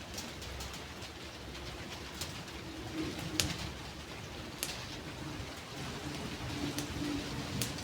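A dove cooing low and steady over a background hiss, with a few sharp ticks scattered through.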